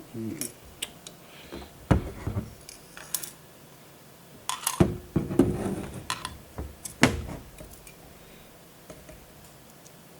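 Small metal clicks and clinks as screws are driven with a screwdriver into a metal NUC chassis: scattered sharp knocks, some ringing briefly, with the loudest about seven seconds in and little after eight seconds.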